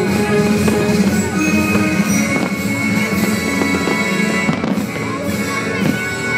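Music playing, with aerial fireworks bursting over it a few times.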